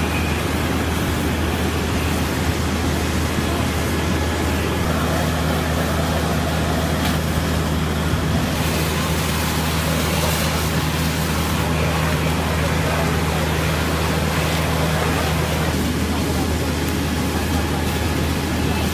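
Fire engines' diesel engines running steadily to drive their pumps feeding the hose lines, a constant low drone under a broad hiss. A second, higher steady hum joins about five seconds in and stops about three seconds before the end.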